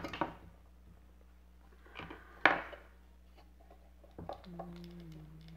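Hands working a plastic toy mechanism and its fabric cover apart: short scraping and crackling handling noises, the loudest a sharp crack about two and a half seconds in. Near the end a low, steady hum starts and drops slightly in pitch.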